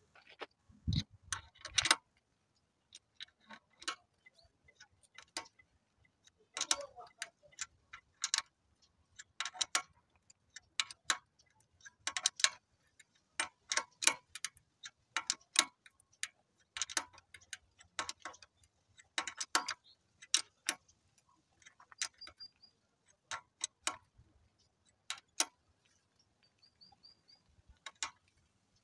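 A thread tap being worked by hand into a drilled-out bolt hole in an engine block, chasing the threads. The tool gives irregular sharp metal clicks and ticks, in short clusters with pauses between.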